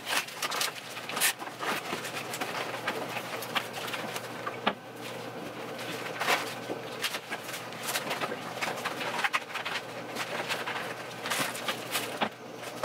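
Rustling and crinkling of a reusable grocery bag and food packaging, with scattered small knocks and clicks, as groceries are unpacked and put away.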